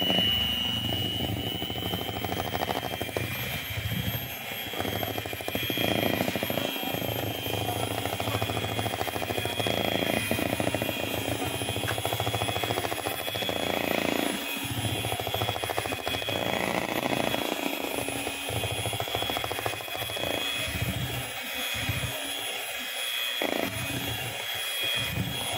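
Electric hand mixer running steadily with a high motor whine, its twin beaters churning thick banana cake batter in a bowl.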